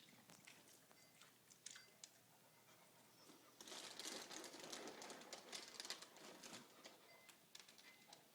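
Faint rustling with scattered light clicks, louder and denser for about three seconds in the middle.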